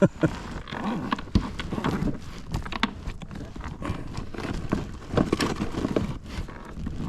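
A man grunting and breathing hard as he shifts about in a kayak, over scattered knocks and clatter of gear being handled.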